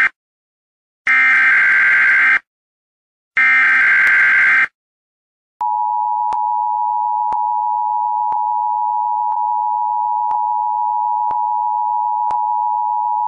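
Emergency Alert System SAME header: the tail of one short buzzy digital data burst, then two more, each about a second long. About five and a half seconds in, a steady two-tone EAS attention signal begins, with a faint click about once a second.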